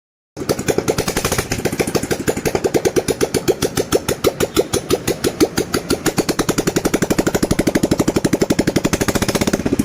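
Royal Enfield G2 Bullet's single-cylinder engine idling with its thump, a steady beat of about eight pulses a second, running on a freshly changed piston and rings.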